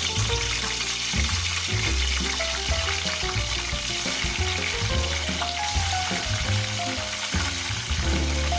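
Pork pieces deep-frying in hot oil, sizzling steadily as the oil bubbles up around them. Background music with a bass line and a simple melody plays over it.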